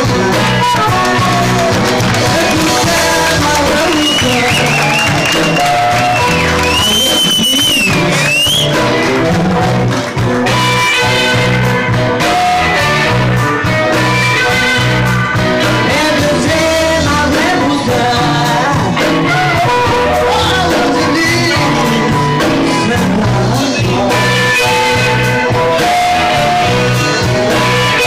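Live blues band playing a slow blues: electric guitars, bass, drums and harmonica, with a woman singing.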